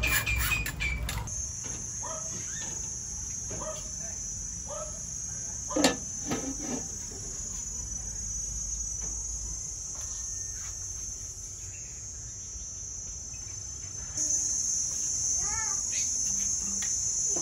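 Insects chirring in a steady, continuous high drone that grows louder about 14 seconds in. A single sharp clatter sounds about six seconds in.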